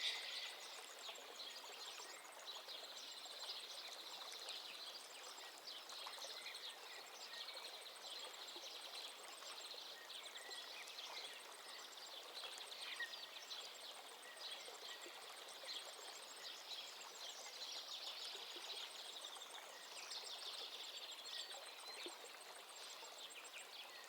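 Faint night-nature ambience: a soft, even wash of running water under high, rapid chirping trills from night creatures.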